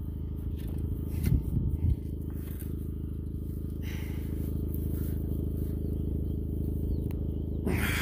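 Small utility-vehicle engine idling with a steady low hum. A shovel scrapes and knocks in dirt and stones a little after a second in, and again briefly near the end.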